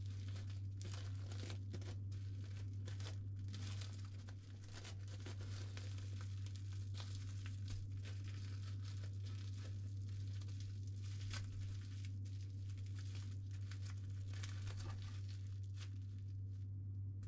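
Plastic cling film crinkling and crackling in irregular bursts as it is pulled and pressed tightly around a soft sandwich, over a steady low hum.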